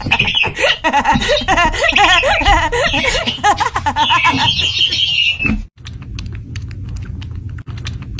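High, wavering laughter and giggling that cuts off suddenly about five and a half seconds in. A quieter low hum with a run of soft clicks follows.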